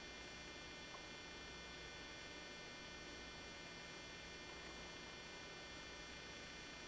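Steady electrical hum with several faint, constant high-pitched whines over a low hiss: equipment noise, with no animal or other sound standing out.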